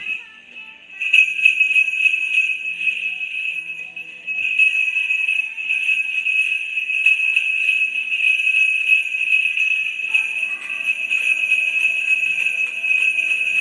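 A handheld stick of sleigh bells shaken continuously in a steady jingle, starting about a second in, with a brief drop around four seconds before the shaking picks up again.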